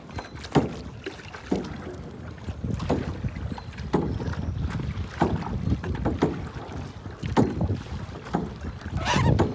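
Kayak paddle strokes dipping and splashing in the water, about one a second, over a steady rumble of wind on the microphone.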